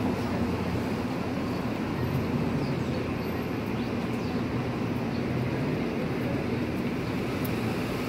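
Steady city street traffic noise: the idling engines of a transit bus and cars sitting in stopped traffic, with a steady low hum under it.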